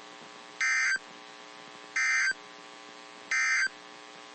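Three short SAME digital data bursts from a NOAA Weather Radio broadcast, each about a third of a second long and a little over a second apart: the end-of-message code that closes the weekly test. A faint steady hum from the receiver lies between the bursts.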